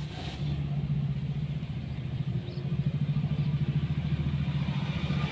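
A motor vehicle engine running steadily at an even speed, a low pulsing hum.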